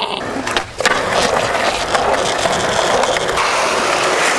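Skateboard wheels rolling steadily on concrete, starting just after a sharp click about a second in.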